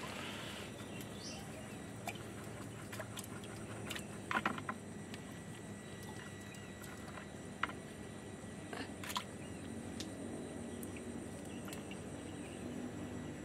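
Faint handling noise from a collapsible mesh shrimp trap being worked over a plastic bucket of water: a few short clicks and light rustles against a steady faint outdoor background.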